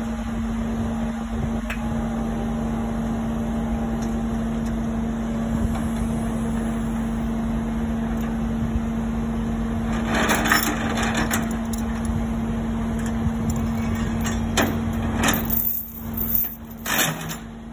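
Crown electric reach truck running with a steady hum. Bursts of metal clanking and rattling come from the truck on the steel ramp, about ten seconds in and again near the end.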